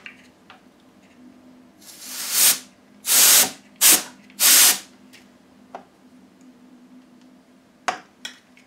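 Four short hissing blasts from a can of compressed air, the first swelling up and the rest starting abruptly, blowing wet alcohol ink across the paper. A few light clicks follow.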